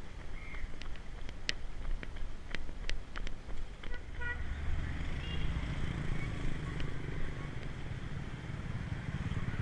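Motorbike and car engines running past, a low steady rumble that builds about four seconds in and continues, opened by a short horn toot. Before that, a few sharp clicks.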